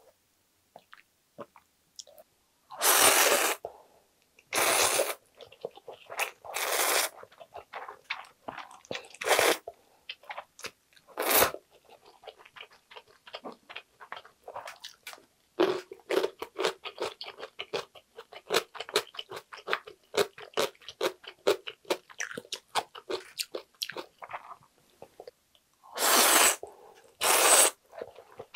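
Close-up eating sounds: instant ramen noodles slurped in five short loud bursts, then a long run of crisp, rapid crunching as cubed radish kimchi (kkakdugi) is chewed. Two more loud noodle slurps come near the end.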